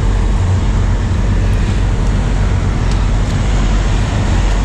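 Strong blizzard wind blowing across the microphone over a steady low rumble, with a few faint ticks.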